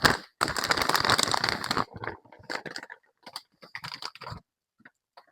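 Rustling and light clicking of laundry being handled: a dense burst of rustling for about a second and a half, then scattered small rustles and clicks.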